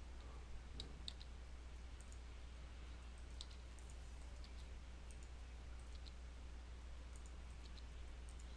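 Faint, scattered clicks of a computer mouse and keyboard, about one every second or so, over a steady low hum.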